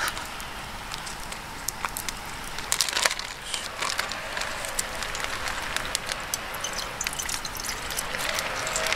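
Crinkling and rustling of a plastic zip bag of ice as it is handled and opened. Near the end the ice and meltwater start tipping out of the bag into a pot, with scattered clicks.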